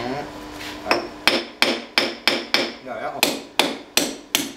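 Hand hammer striking steel on a power hammer's die block to knock out the die's retaining pins: sharp, ringing metal-on-metal blows about three a second, starting about a second in.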